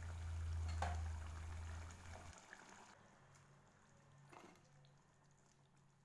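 Curry bubbling at a simmer in an open pan, over a steady low hum for the first two seconds, with a light knock about a second in. The sound fades to near silence after about three seconds.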